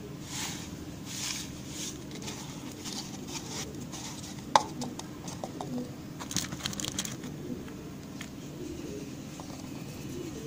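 Dry, sandy soil being poured and spread by hand in a plastic tub. Soft rustling swishes come in the first second or so, then scattered clicks and taps. The sharpest click comes about four and a half seconds in, and a run of small clicks follows around six to seven seconds.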